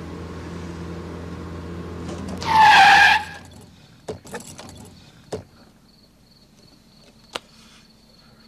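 Car engine running, then a loud tyre screech about two and a half seconds in lasting under a second as the car is pulled up sharply, after which the engine noise falls away. A few sharp clicks follow, with crickets chirping steadily.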